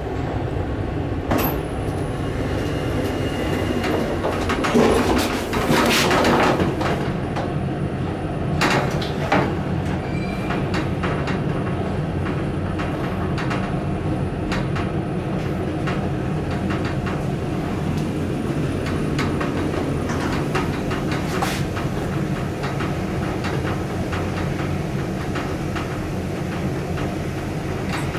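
1975 KONE inclined traction elevator: knocks and a louder stretch in roughly the first nine seconds as the doors close and the cab sets off, then a steady running sound with faint ticks and rattles as the cab travels up the incline.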